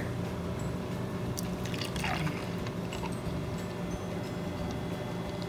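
Thick blended piña colada pouring from a blender jar into a glass mug: a soft, fairly quiet pour with a few small clicks, over a faint steady hum.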